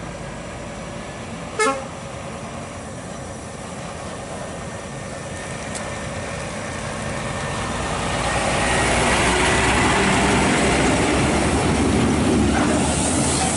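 A short horn toot about two seconds in. Then a Scania P-series tractor unit's diesel engine, hauling a lowbed trailer loaded with excavator track frames, grows louder as the truck passes close. It is loudest near the end and cuts off suddenly.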